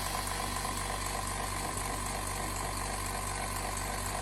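Phone-screen bubble-removal machine (pressure chamber) running during the debubbling cycle, with a steady machine hum and a constant mid-pitched tone.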